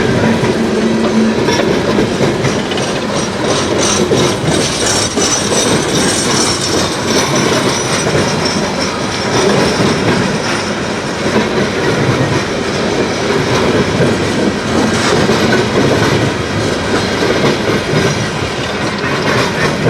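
CSX freight train's cars rolling past steadily, the steel wheels clacking over rail joints, with a high wheel squeal about five seconds in.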